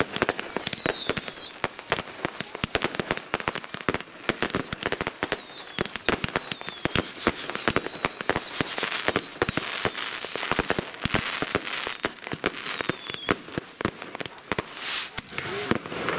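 Massed New Year's fireworks: a dense, unbroken barrage of bangs and crackling firecrackers and aerial shells from many sources at once. Short falling whistles repeat through the first half.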